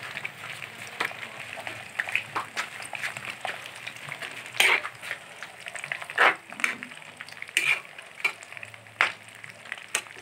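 Food frying in a metal wok while a metal spatula stirs it, scraping and knocking against the pan every second or so; the loudest strokes come about halfway through.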